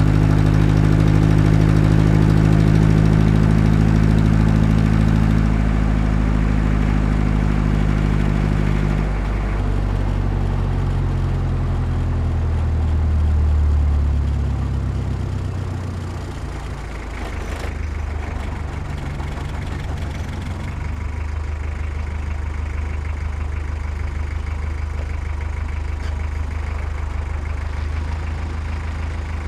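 Diesel engine of heavy earthmoving equipment running. It changes pitch and load about a third of the way in, surges briefly, then settles into a steady idle for the rest.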